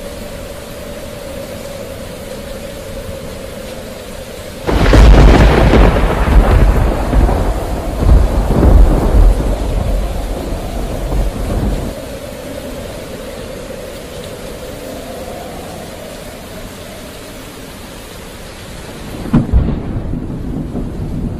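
Thunder over steady rain: a sudden crack about a quarter of the way in rolls on as a deep rumble for several seconds, and another crack comes near the end.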